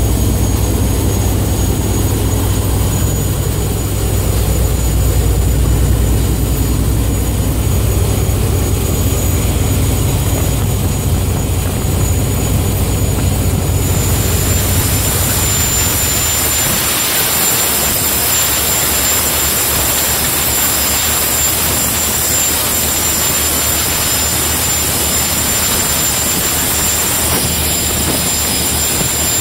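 Powerful high-speed boat engines running flat out, a loud, deep, steady drone mixed with rushing wind and water spray. About halfway through the deep drone fades and a hiss of wind and spray takes over.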